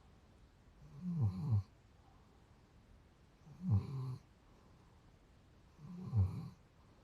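Dog snoring in its sleep: three low snores about two and a half seconds apart, each sliding down in pitch.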